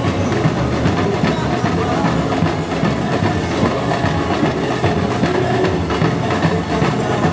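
Carnival street-parade din: percussion drumming with rapid clattering strikes over a dense background of crowd noise.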